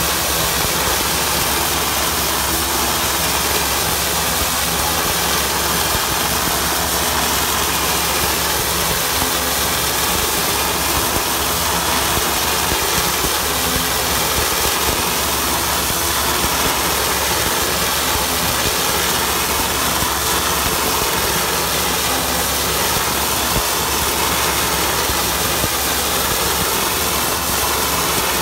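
Handheld ultra-high-pressure water-jet lance at 20,000 psi scarifying a concrete bridge deck: a loud, steady hiss of the jet cutting into the concrete, with a steady low hum underneath.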